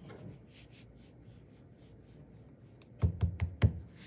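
Wooden rolling pin knocking on a clay slab and the tabletop: a few faint clicks, then a quick run of four or five dull knocks about three seconds in.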